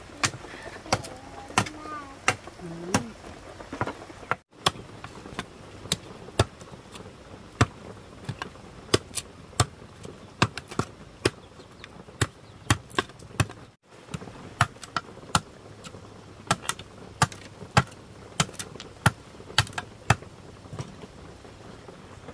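A hand tool striking wood or bamboo: repeated sharp knocks, about one to two a second, with the sound cutting out briefly twice.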